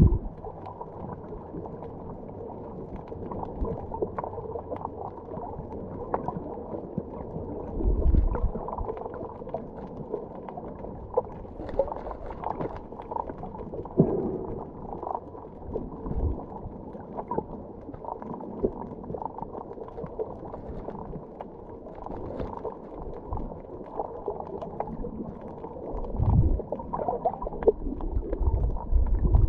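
Muffled underwater sound of moving water picked up by a submerged camera: a steady low wash sprinkled with many small clicks and crackles. Low thumps come about eight seconds in and again over the last few seconds.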